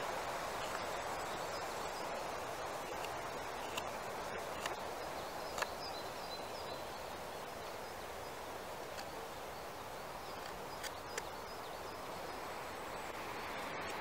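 A carving knife paring a wooden spoon, its cuts heard as a few sharp clicks, over a steady outdoor background hiss with faint bird chirps.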